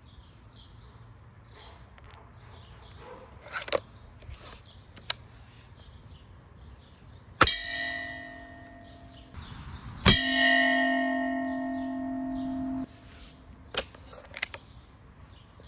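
Air rifle pellets striking a metal pot twice, a few seconds apart, each hit leaving the pot ringing with a bell-like clang. The second hit is the louder and rings for a few seconds before stopping suddenly. Smaller clicks come before and after, with faint bird chirps behind.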